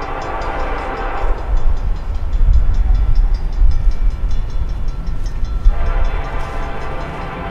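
An approaching Norfolk Southern freight locomotive sounds its horn, which breaks off about a second in and starts again near the end. A grade-crossing bell rings steadily throughout, with a loud low rumble between the horn blasts.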